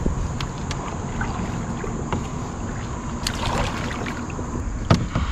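Hooked smallmouth bass swirling and splashing in the water beside a canoe as it is played in, over a steady rumble of wind on the microphone. Scattered light clicks, and one sharp knock about five seconds in.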